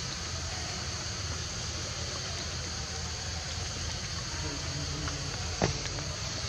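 Steady outdoor forest ambience: a high, even insect drone over a low rumble, with one sharp click near the end.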